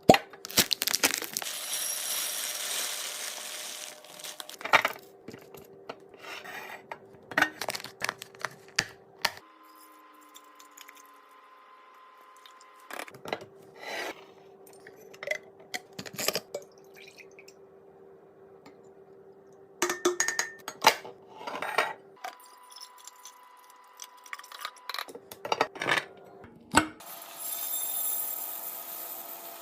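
Restocking sounds of containers and packaged food being handled and set down: a string of light clinks, taps and clatters, with stretches of hiss and crinkle near the start and again near the end.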